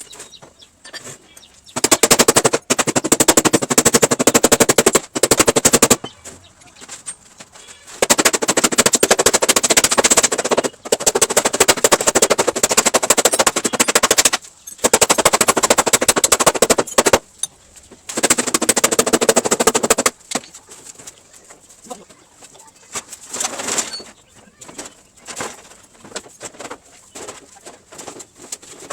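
A power tool rattling with very rapid repeated impacts, in four long bursts of a few seconds each, then only softer scattered knocks near the end.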